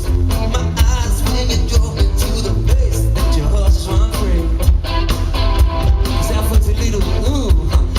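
Live band playing upbeat rock music, with heavy bass and drums under a wavering lead melody line.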